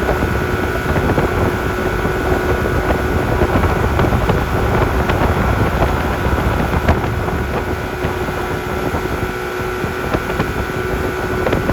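A 1987 Mercury motorboat under way, its engine running at a steady speed with a constant drone. Water rush and wind buffeting the microphone run over it.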